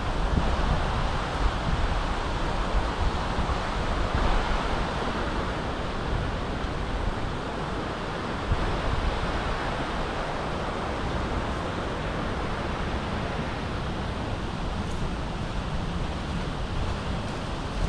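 Steady rush of water from a cascading waterfall pouring over rock.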